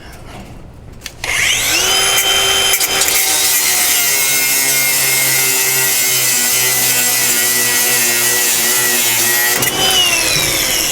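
Electric angle grinder spinning up about a second in, cutting steadily through a seized, rusted pickup bed bolt with a steady high whine, then winding down with a falling pitch near the end.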